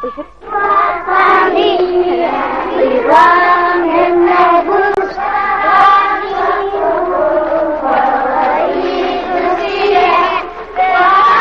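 A group of children singing together in unison, a chant-like song with long held notes, starting about half a second in.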